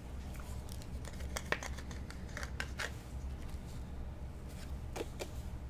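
1984 Donruss cardboard baseball cards being handled and slid against one another, giving light, irregular clicks and scrapes, sharpest about a second and a half in and near the end. A steady low hum runs underneath.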